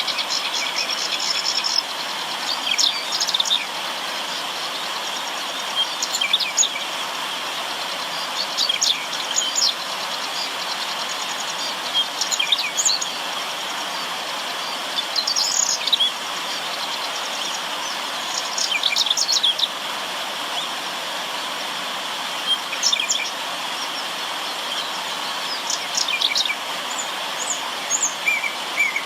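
Steady rush of river water, with small birds chirping in short bursts every few seconds over it; a high trill runs through the first second or so.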